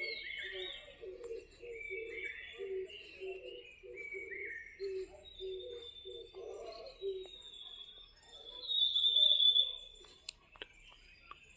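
Birds chirping and calling with short falling notes. About eight and a half seconds in comes a long high whistled note, the loudest sound. Under the first seven seconds runs a low note repeated a few times a second.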